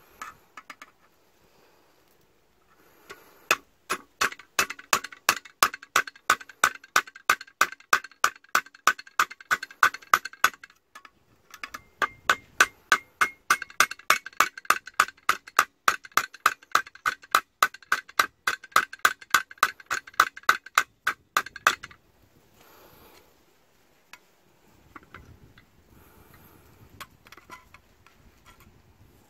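Hammer rapidly striking a steel punch held against a knife blade in a vise, stamping a row of small marks along the steel: sharp metallic taps about four a second that ring briefly. Two long runs of strikes with a short pause between them.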